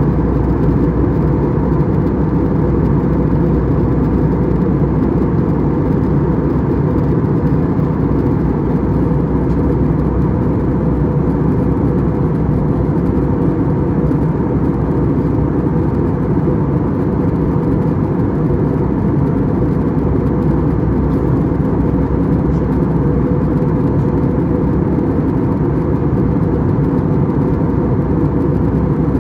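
Steady cabin noise of an Airbus A320-200 in flight: an even low rush of engines and airflow with a faint steady tone above it.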